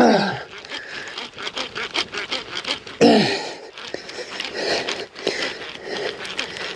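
Close handling noise: a fishing rod, reel and shirt sleeves rubbing and knocking right by the microphone, many small irregular clicks. Two loud sounds that fall in pitch come at the start and again about three seconds in.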